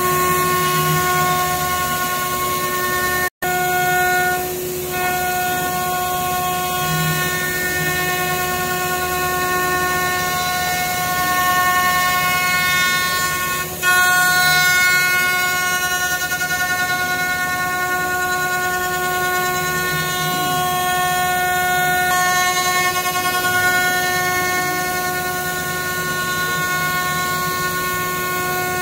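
5-axis CNC router's spindle running steadily while it carves a wooden chair part: a continuous whine made of several steady pitches together over a noisy hiss. The sound cuts out for an instant about three seconds in.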